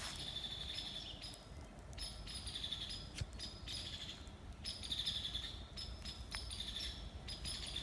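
Forest birds chirping in repeated short bursts with brief gaps between them, which the hiker takes for birds disturbed by something.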